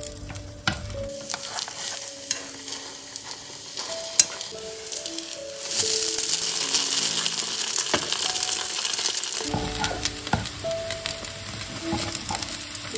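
Egg-soaked toast slices frying in butter in a nonstick pan, sizzling steadily, with a few light clicks of tongs and a spatula against the pan. The sizzle is louder from about six to nine and a half seconds in.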